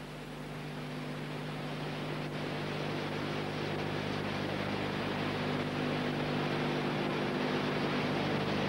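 Steady low hum with hiss and no other sound, slowly growing louder, typical of the noise floor of a tape playback with no programme sound.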